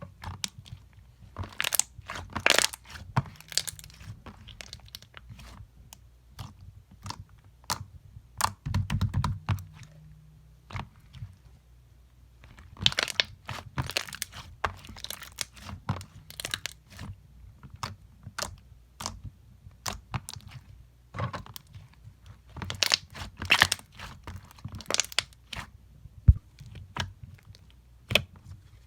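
Slime worked by hand: irregular clusters of sharp crunches and crackles, with a muffled thump about nine seconds in.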